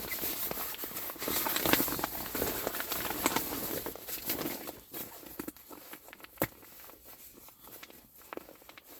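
Rustling and crinkling of a new inflatable sleeping pad being unpacked and handled, busy for the first half and then quieter with scattered clicks. One sharp knock about six and a half seconds in.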